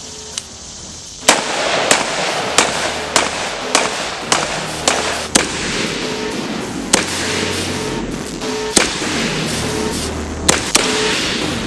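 Single rifle shots from an Anderson AM-15 Marksman, a semi-automatic 5.56 mm rifle with an 18-inch barrel: about a dozen shots at an irregular pace, roughly one every half second to two seconds, over background music with a steady beat.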